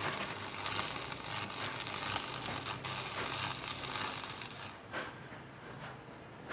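Stick arc welding on steel rings: the electrode's arc crackles and sizzles steadily, then stops about four and a half seconds in. Two short taps follow.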